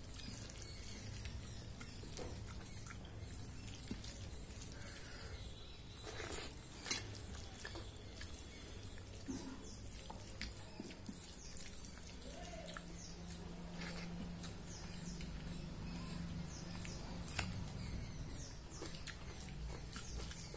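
Eating by hand from a steel plate: wet squelches as the fingers mix rice and dal, and quiet chewing, in many small scattered clicks, the sharpest about seven seconds in.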